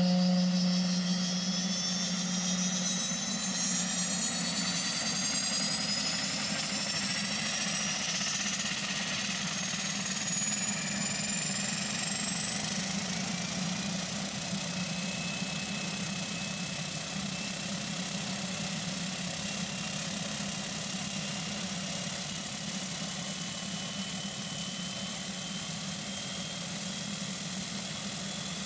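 Allison 250-B17C turboprop engine of a Maule MX-7-420 running on the ground, its propeller turning: a high turbine whine rises in pitch over about the first thirteen seconds as the engine spools up, then holds steady over a steady low propeller hum.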